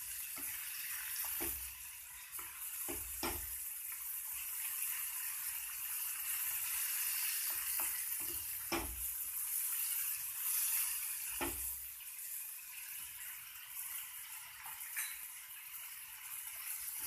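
Chopped onion, capsicum and tomato sizzling steadily in hot oil in a kadhai on medium flame, with a few scattered knocks and scrapes as a spatula stirs the pan.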